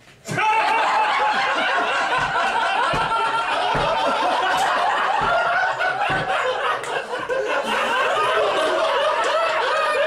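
Audience laughing together, many voices at once, breaking out just after a punchline and carrying on loudly without a pause.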